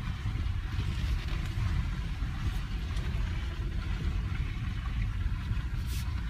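Inside the cabin of a 2014 Ford Edge crawling over a muddy track: a steady low engine and road rumble with a faint hiss above it, and one short click near the end.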